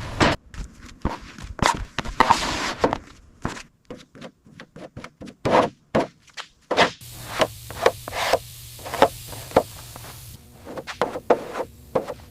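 Hand tools knocking and scraping, a run of irregular sharp taps with a scraping stretch about two seconds in.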